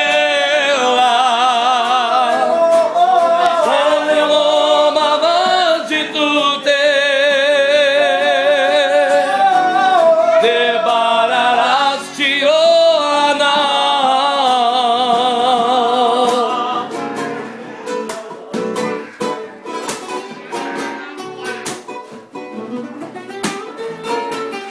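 A worship song sung with heavy vibrato over a strummed nylon-string classical guitar. About two-thirds of the way through, the singing stops and the guitar goes on strumming alone, more quietly.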